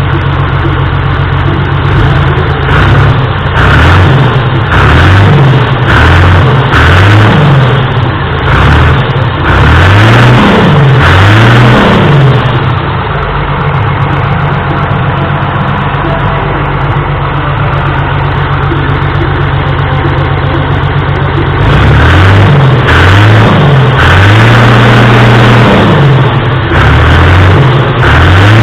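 John Deere 3040 tractor's six-cylinder diesel engine being revved up and down repeatedly, the pitch climbing and dropping every second or so. In the middle it settles to a steadier, slightly quieter run, then the revving resumes near the end.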